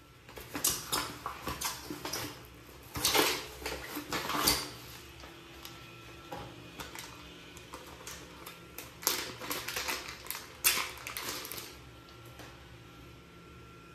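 Plastic packaging crinkling and rustling as it is handled by hand, in two spells of quick irregular crackles: one in the first few seconds, and one starting about nine seconds in, as a small clear plastic bag is opened to take out a toilet flapper seal ring.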